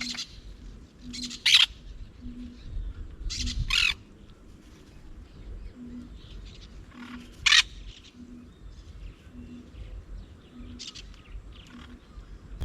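Parrots giving harsh, loud squawks: three strong calls, about a second and a half in, near four seconds and halfway through, with fainter calls between. Under them a soft low note repeats about once a second.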